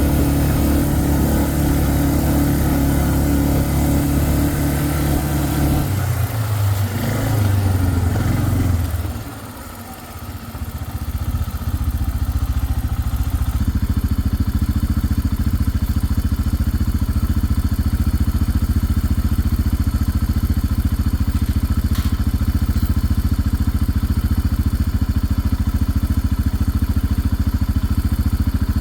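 A vehicle engine running steadily. Its sound shifts about six seconds in and drops away briefly near ten seconds, then settles back into a steady, even hum.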